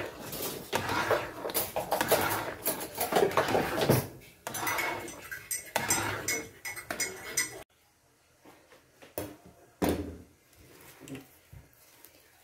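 A metal spatula scraping and clattering against an aluminium pan while stirring thick, sticky ube halaya. The scraping stops suddenly about two-thirds of the way through, leaving a few faint knocks.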